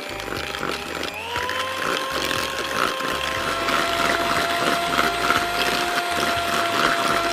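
Electric hand mixer running with its beaters in a bowl of batter: a steady motor whine whose pitch steps up about a second in and again after about three seconds.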